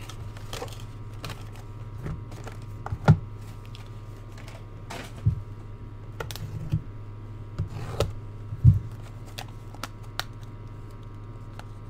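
A trading-card box and its small cardboard packs being handled: scattered light clicks, taps and scuffs, the sharpest about three seconds in and near the end, over a steady low hum.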